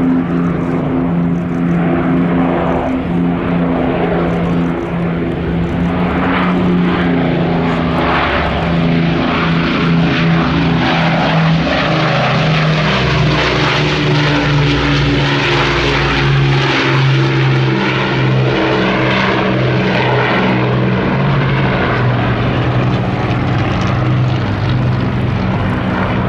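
Rolls-Royce Merlin piston engines of a wartime propeller aircraft flying a display pass, a loud, steady drone whose pitch slowly drops through the middle as the aircraft goes by.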